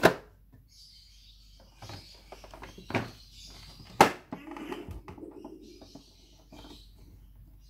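Hard plastic knocks and clatter from a Fisher-Price Laugh & Learn toy kitchen as its drawer is pushed in and its fridge door is swung shut, the loudest sharp clack about four seconds in. Faint bird chirping carries on in the background.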